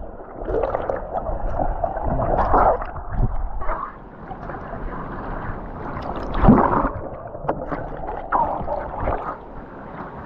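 Water sloshing and splashing close to the microphone in uneven bursts, the loudest about six and a half seconds in, then settling quieter near the end.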